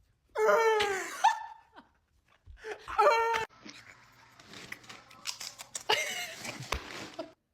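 A man's silly vocal sound effects mixed with laughter. There is a loud falling, wailing noise about half a second in, a shorter one around three seconds, then a longer breathy, giggling stretch.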